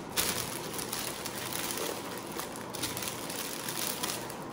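Crinkling and rustling of a printed plastic Easter-egg bag as it is gathered and pleated closed by hand.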